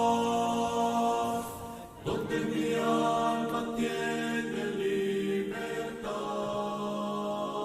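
Voices singing a slow worship song in long held notes, the pitch changing every second or two, with a short break about two seconds in.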